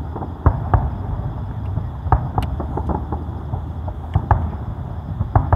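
Aerial firework shells bursting at a distance: a string of sharp bangs, irregularly spaced and some in quick pairs, over a steady low rumble.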